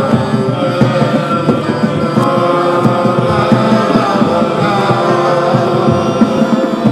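Live freeform music: several sustained, droning pitched tones layered over a busy, quick low pulse.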